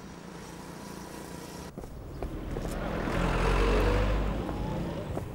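Street ambience with a motor vehicle passing by: its noise swells to a peak about three and a half seconds in, with a low rumble, then fades.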